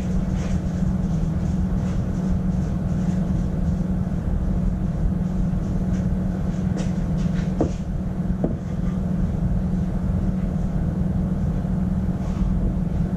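Steady low drone of workshop machinery running, with a few light clicks about seven to eight and a half seconds in.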